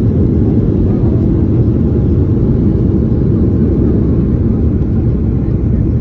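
Boeing 737-800 jet airliner's engines giving a steady low rumble, easing slightly near the end.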